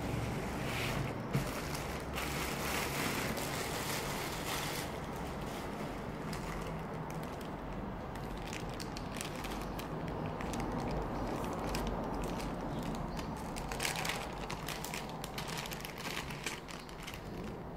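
Plastic packaging crinkling and rustling as it is handled and pulled off, busiest at the start and again about fourteen seconds in.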